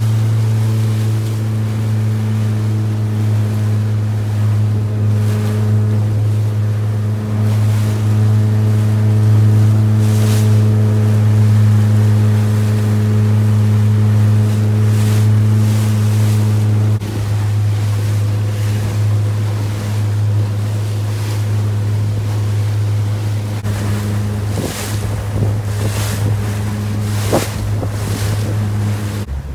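A boat engine runs at a steady low drone, easing slightly a little over halfway through. Wind buffets the microphone over the sound of the sea, most strongly near the end.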